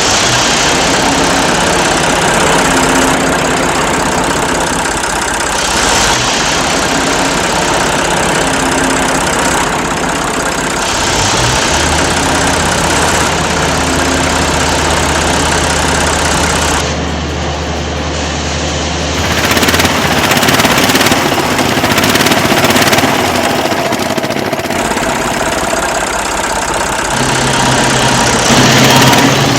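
A vehicle engine running steadily, its sound changing every few seconds.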